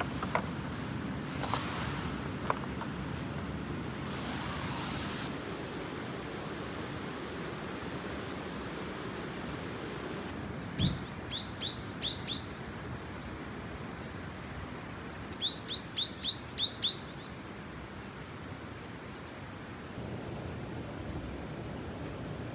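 A bird calling outdoors in two quick runs of about six short, sharp chirps each, midway through and again a few seconds later, over a steady background hiss.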